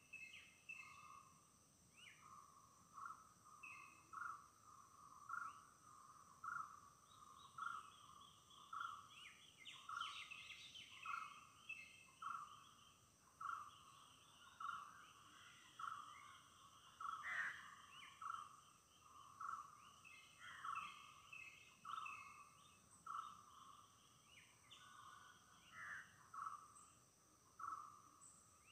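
Faint forest morning chorus: a short low call repeated evenly, a little more than once a second, with higher bird chirps and trills coming and going, over a steady high-pitched insect drone.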